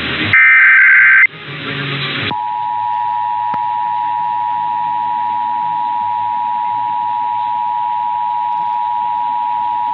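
Emergency Alert System test over AM radio: the last burst of the SAME digital header, a shrill warbling data squawk about a second long, then about a second of radio hiss. About two seconds in, the EAS two-tone attention signal (853 and 960 Hz) starts and holds steady.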